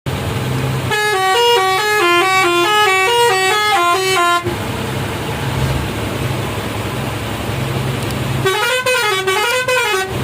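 Roots hexatone air horn driven by a melody maker playing a quick tune of stepped notes for about three and a half seconds, then near the end a wavering tone that rises and falls about three times, over the steady hum of the moving bus.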